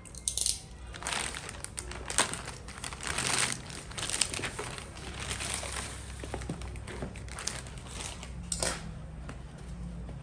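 Packaging being handled and unwrapped, crinkling and rustling in irregular bursts with a few light knocks.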